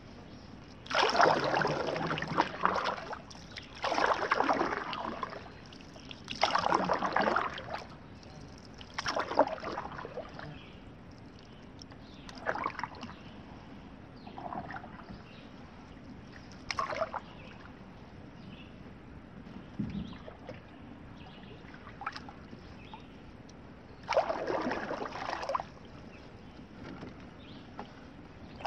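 Canoe paddle strokes: splashing, dripping bursts of water every two to three seconds. They are loudest in the first ten seconds and again near the end, with smaller drips and splashes in between.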